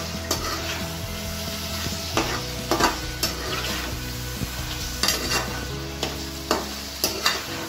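Chicken pieces frying in ginger-garlic paste in a steel kadai, sizzling steadily while a spatula stirs them. The spatula scrapes and knocks against the pan about ten times at irregular intervals.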